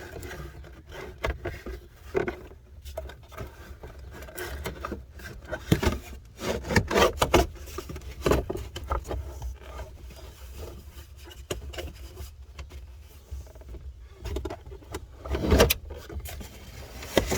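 Plastic interior trim pieces of a Jeep Cherokee XJ's dash and center console being handled and worked into place: irregular knocks, rubbing and scraping, with the loudest knocks about six, seven and fifteen seconds in.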